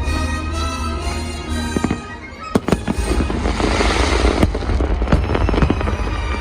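Fireworks bursting over show music: sharp bangs and pops, with a dense burst of crackling about three seconds in.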